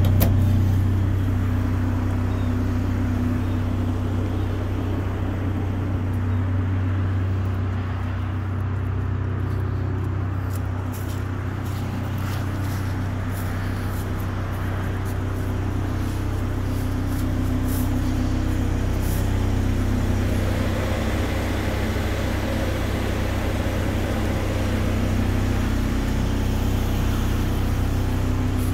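An engine running steadily at a constant speed, a low, even drone that is a little louder about a second in and then settles.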